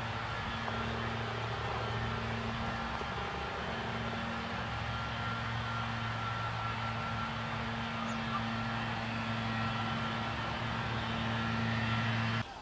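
A steady low mechanical hum over a constant, even rushing noise.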